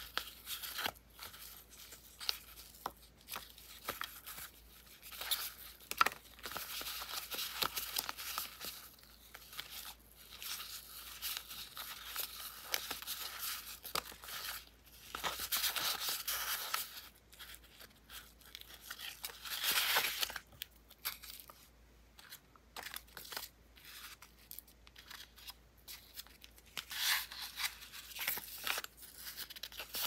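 A stack of thin printed paper pieces rustling and crinkling as hands leaf through and shuffle them, with small flicks and taps of the paper edges. It comes in uneven swells, louder several times, with quieter gaps between.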